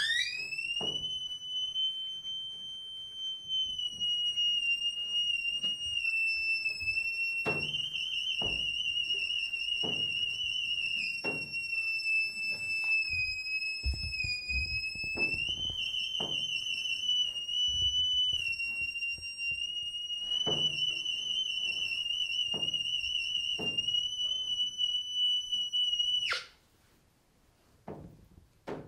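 A single high, piercing tone slides up at the start, holds steady for about 26 seconds with a slight waver in places, then cuts off suddenly. Scattered soft knocks sound beneath it.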